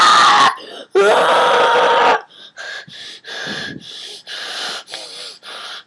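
A person's voice: two loud, drawn-out screams, then a run of short breathy wheezing gasps, about two or three a second.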